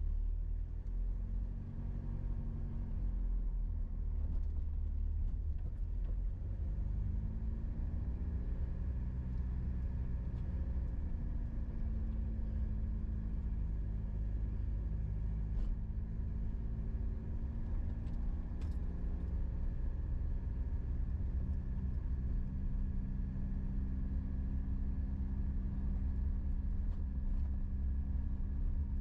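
Car driving: steady low engine and tyre rumble, the engine note rising and falling a few times as the speed changes.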